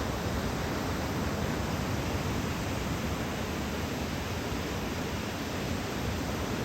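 Ocean surf breaking: a steady, even rush of noise with no single wave standing out.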